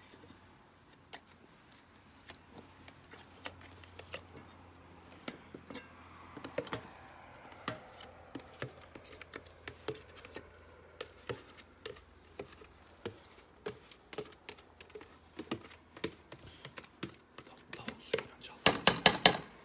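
A utensil and a plastic container clinking and tapping against aluminium cooking pots as food is dished out into them. Scattered light clicks and knocks run throughout, with a quick run of loud taps near the end.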